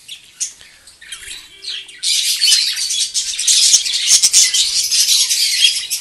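A colony of budgerigars chattering together, a dense high twittering that grows loud about two seconds in and carries on without a break.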